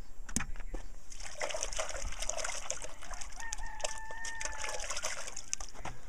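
Chickens clucking, with a rooster crowing once for about a second and a half, a little past the middle. A single sharp click comes just after the start.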